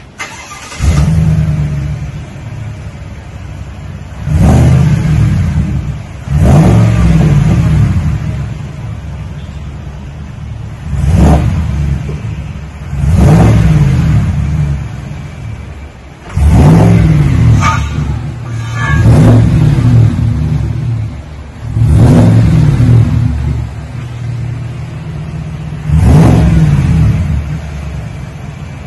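2020 Chevy Silverado Trail Boss exhaust fitted with a Magnaflow muffler in place of the factory muffler, rear resonators removed and stock up front. The engine fires up about a second in and settles to a steady idle. It is then revved about eight times, each rev rising and falling back to idle.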